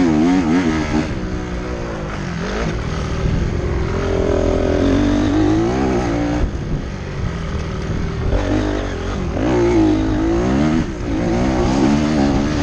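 Motocross dirt bike engines racing, revving up and down over and over, their pitch rising and falling as the throttle is opened and closed.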